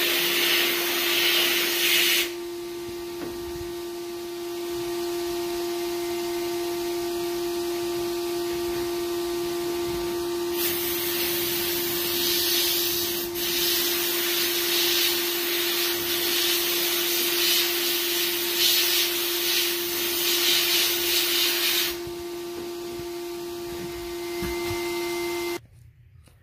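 Media blast cabinet blasting a pistol slide: a steady motor hum under loud hissing from the blast nozzle, which runs for about two seconds at the start, stops, then runs again for about eleven seconds in the middle. The whole machine shuts off shortly before the end.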